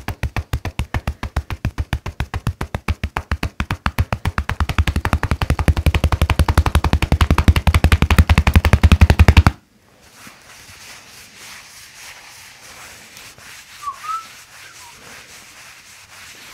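Hands striking a person's upper back in rapid percussion massage (tapotement), a fast even train of slaps at about eight to ten a second. The strikes grow louder about four seconds in and stop abruptly partway through, leaving quiet room tone.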